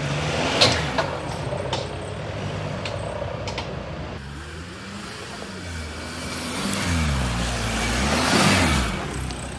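Off-road Jeep 4x4 engine running at low revs as it crawls down a steep dirt slope, with a few sharp knocks in the first two seconds. In the second half the revs rise and fall several times, loudest shortly before the end.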